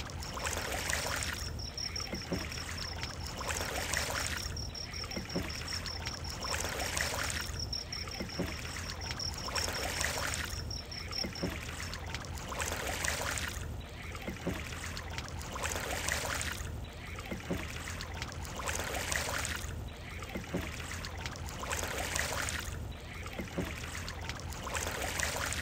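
Wooden oars dipping and pulling through still water in a steady rhythm, one swishing stroke about every two seconds. A thin, steady high whine runs through the first half and stops about halfway in.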